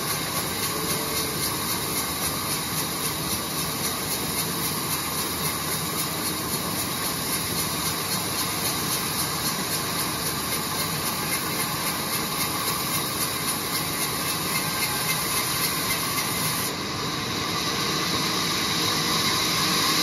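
Sawmill band saw running and cutting a mango wood plank as it is fed through the blade: a steady loud hiss with fine, even ticking. About three-quarters of the way through, the highest hiss drops away and the sound briefly dips, then grows a little louder.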